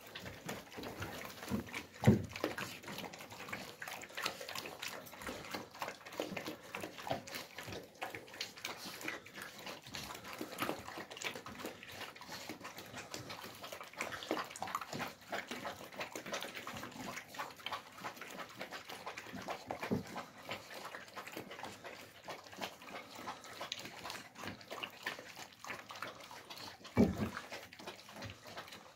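Alabai puppies eating wet food from metal bowls: continuous lapping, chewing and snuffling with many small wet smacks. A louder knock comes twice, about two seconds in and near the end.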